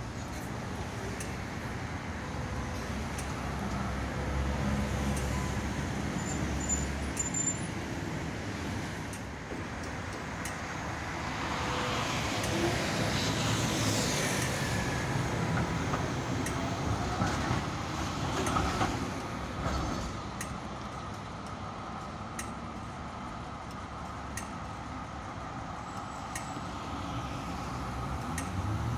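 A low-floor articulated tram runs past close by on street rails. Its wheels and motors rise to their loudest about halfway through, then fade away over steady road traffic.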